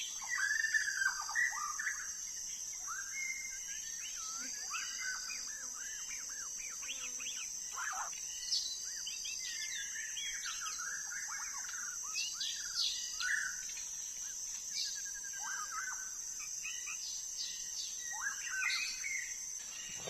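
White-rumped shama singing a continuous run of varied whistles and chirps, quickly rising and falling notes. A steady high insect drone runs beneath it.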